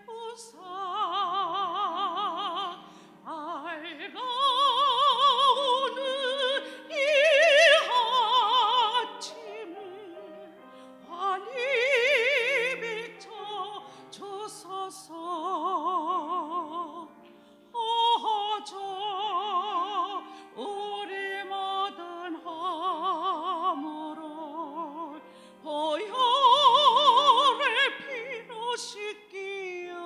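A woman singing a Korean hymn solo into a microphone in a classical style, long held notes with wide vibrato in phrases broken by short breaths. A soft steady accompaniment sits underneath.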